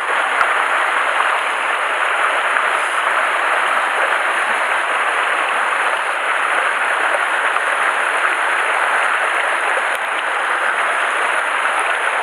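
Mountain stream water pouring over a small rock cascade into a plunge pool: a steady, even rushing.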